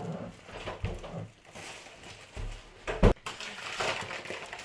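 Kitchen handling sounds: soft knocks and rustling, with one sharp knock about three seconds in.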